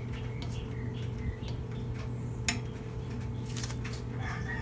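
Scattered light metallic clinks and clicks, the sharpest about two and a half seconds in, over a steady low hum.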